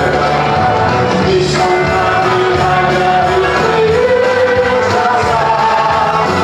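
Live congregational worship music: a congregation singing a gospel song with an amplified band, loud and steady.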